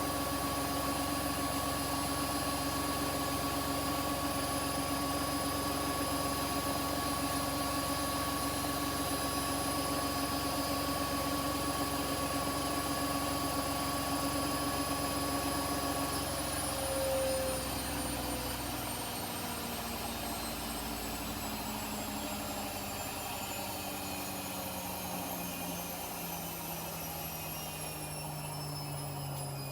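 Front-loading washing machine on its final high-speed spin, the motor and drum whining steadily. About halfway through the drive cuts and the spin winds down, its whine falling slowly in pitch.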